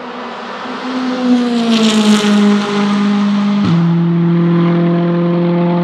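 Volvo S60 Polestar TC1 touring car's turbocharged 1.6-litre four-cylinder engine at racing speed, passing close and pulling away under acceleration. It is loudest about a second and a half in, then drops suddenly in pitch at a quick upshift about three and a half seconds in and carries on steadily.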